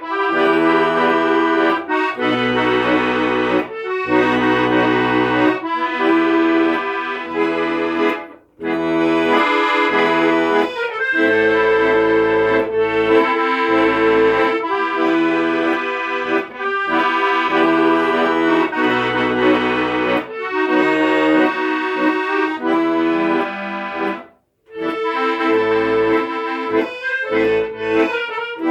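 Accordion playing a melody over chords and a stepping bass, with two brief breaks about eight and twenty-four seconds in.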